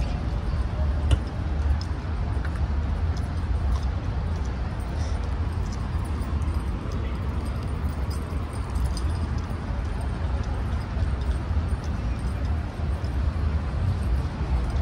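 Night-time city street ambience heard while walking: a steady low rumble, with faint footsteps and small scattered clicks.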